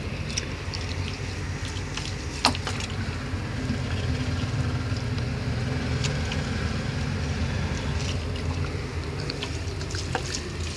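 Water poured from a plastic bottle onto the soil of potted plants, over a low rumble that swells in the middle. Small ticks are scattered throughout, with one sharp click about two seconds in.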